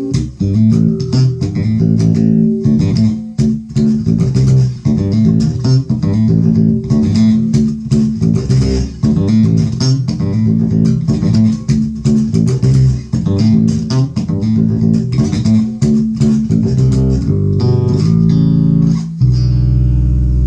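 Alembic Series 2 electric bass played through its neck pickup with the filter fully closed, a dark signature tone. It plays a busy line of quick plucked notes, then lets one long low note ring near the end.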